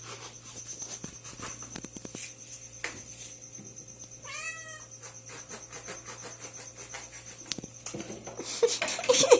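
A house cat meows once, a short call that rises and falls in pitch about four seconds in, among many small clicks and taps; louder scraping or rustling comes near the end.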